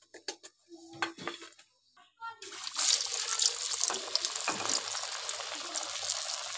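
A few light knocks and clatters, then water running from a tap in a steady rush, starting suddenly about two and a half seconds in and cutting off abruptly.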